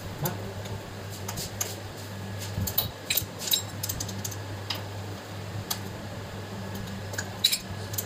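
Metal tools and engine parts being handled, with scattered light metallic clinks and taps, over a steady low hum.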